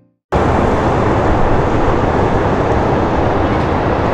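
Loud, steady city street noise with a strong low rumble, starting suddenly after a brief silence.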